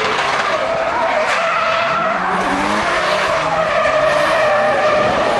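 Drift cars sliding sideways through a corner, engines at high revs with the pitch rising and falling, over a steady loud tyre squeal.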